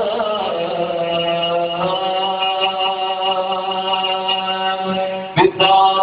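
A male voice chanting an Islamic devotional song (qasidah), holding one long steady note for about five seconds, then breaking off near the end into a new phrase.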